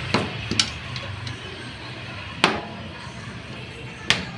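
Sharp metal clinks from work on a tricycle sidecar's wheel hub and axle: four short strikes, two close together at the start, the loudest about halfway, and one near the end.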